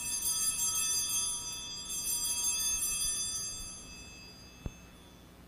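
Altar bells (a cluster of small sanctus bells) shaken at the elevation of the consecrated host, signalling the consecration. There is a jingling peal at the start and another about two seconds in, the ringing then fading away, followed by a single short knock near the end.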